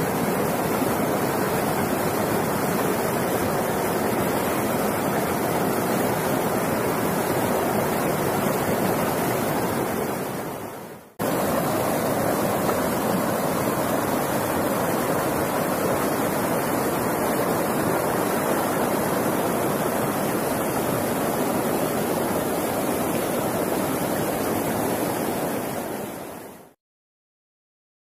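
Steady rush of fast river rapids over rocks. It fades away about ten seconds in, cuts straight back in, and fades out near the end.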